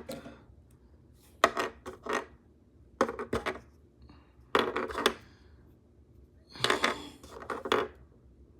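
Hard plastic packaging and action figure parts clicking and rustling while being handled, in four short bursts with pauses between them.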